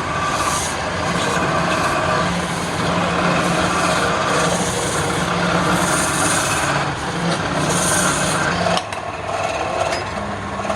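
Wood lathe running with a steady motor hum while a tool scrapes and cuts the spinning wood in repeated passes. The cutting stops abruptly about nine seconds in, leaving a quieter hum.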